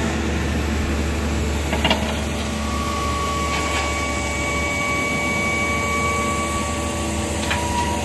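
Heavy diesel construction machinery, a Hyundai crawler excavator loading a dump truck, running steadily with a deep engine hum. A steady high whine joins about two and a half seconds in, and there are a couple of short knocks.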